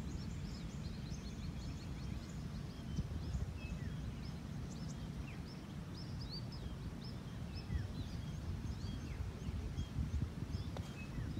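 Small birds chirping over and over, with a steady low rumble of outdoor background noise. Near the end comes a single sharp click: a golf wedge striking the ball on a full approach shot.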